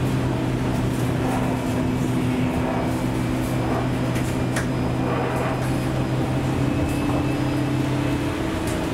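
Inside a Škoda 28Tr trolleybus on the move: a steady electrical hum of several held tones over an even rush of road noise from the wet street, with a single sharp click about halfway. The lowest hum tone drops out shortly before the end.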